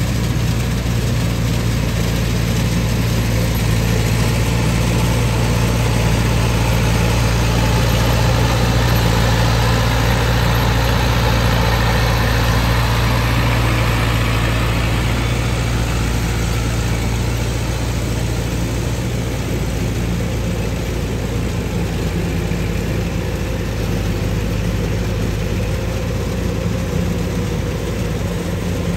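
Kubota DC-105X rice combine harvester running under load, its diesel engine humming steadily while the header and thresher work through lodged, flattened rice. The deep engine hum eases a little about two-thirds of the way through.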